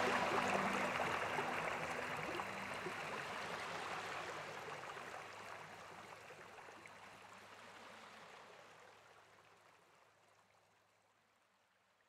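Waterfall pouring into a pool: a steady rush of water that fades out gradually to near silence. The last notes of background music die away in the first few seconds.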